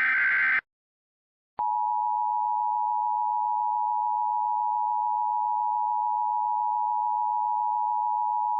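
The tail of an Emergency Alert System data burst, a harsh electronic warble that stops about half a second in. After a second of silence comes the EAS attention signal, a steady, unchanging electronic tone that starts sharply and holds, announcing the alert message to follow.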